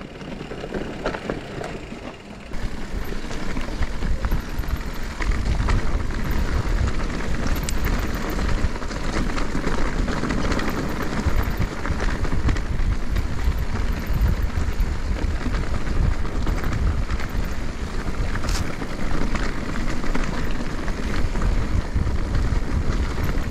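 Mountain bike riding down a rough trail: a steady rumble of wind buffeting the microphone and tyres running over dirt and rock, louder from about two seconds in, with a few sharp clicks and rattles.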